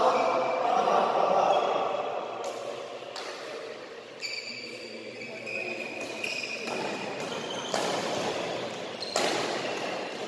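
Badminton rally: rackets striking the shuttlecock in a string of sharp hits about a second apart, starting a couple of seconds in, with short high squeaks between them, typical of court shoes on the sports-hall floor.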